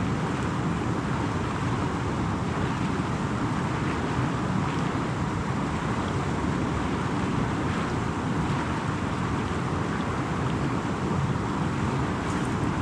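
Steady wind blowing across the microphone, an even rushing noise with no breaks.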